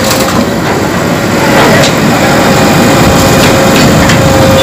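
JCB backhoe loader's diesel engine running under load as its arm works against an overturned truck, with a steady whine over the engine and a few scattered knocks.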